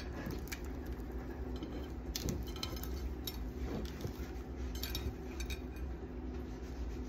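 A flour tortilla wrap being folded and rolled by hand on a ceramic plate: soft rustles with scattered light clicks against the plate, bunched in the middle, over a steady low hum.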